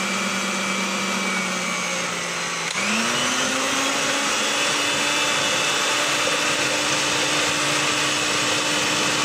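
Electric mixer running with its beaters whipping butter in a glass bowl for buttercream. About three seconds in, the motor speeds up with a short rise in pitch, then runs steadily at the higher speed.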